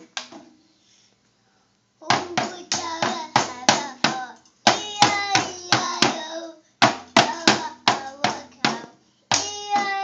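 A toddler beating a child's drum kit with drumsticks. Quick, uneven strikes, about three or four a second, start about two seconds in and come in runs of roughly two seconds, with short breaks between them.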